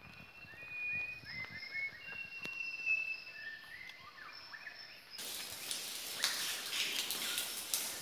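Quiet forest ambience with thin, short whistled bird calls. About five seconds in, it cuts abruptly to a louder, hissier background with scattered clicks and ticks.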